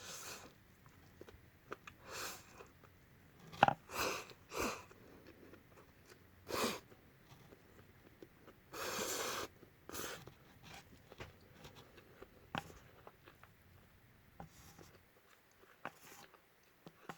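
Close-up eating sounds of instant Peyoung yakisoba noodles: scattered wet chews and mouth noises, a sharp click about three and a half seconds in, and a longer noisy burst of about a second a little past the middle.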